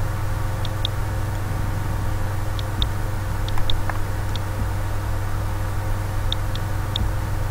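Steady low electrical hum from the recording setup, with short computer-mouse clicks, often in quick press-and-release pairs, every second or two.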